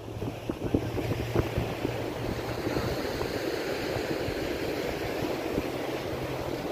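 Sea waves breaking and washing over the shoreline rocks, a steady rushing surf, with some wind on the microphone.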